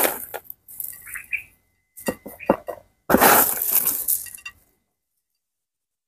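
Small volcanic rock chips scooped by hand from a plastic tray and dropped onto coconut-coir planting mix: light clinks and rattles of stone, with a longer rushing patter about three seconds in.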